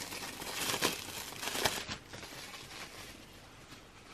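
Plastic wrapping on a CD album crinkling as hands handle it. The crinkles are loudest over the first two seconds, then fade to faint rustling.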